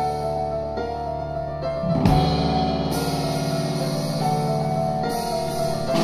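Jazz piano trio playing live: grand piano, double bass and drum kit. The music grows louder and fuller about two seconds in.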